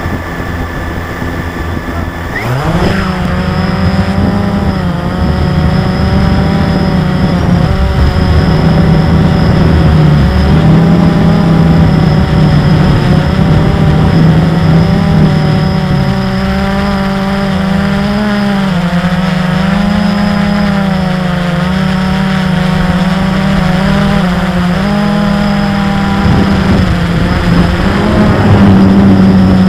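Multirotor drone's motors and propellers spinning up with a rising whine about two and a half seconds in as it takes off, then a steady buzzing hum whose pitch wavers up and down as it flies, heard loud and close through the drone's own onboard camera.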